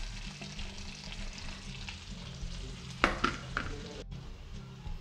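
Chopped chili and garlic sizzling and crackling as they fry in butter in a steel kadai. A few sharp clatters come about three seconds in, and there is a momentary break in the sound just after.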